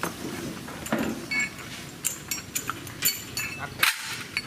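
Irregular sharp metal clinks, several with a brief ring, from a steel gear puller being handled and its screw worked with a bar; the loudest clink comes near the end.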